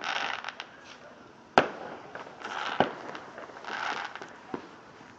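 Fireworks going off: a sharp bang about a second and a half in, the loudest, another near three seconds and a smaller one near the end, with hissing crackle between the bangs.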